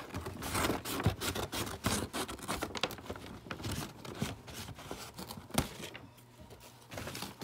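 A tied takeout bag being pulled open and handled, its plastic crinkling and rustling in quick, irregular rustles that ease off about six seconds in.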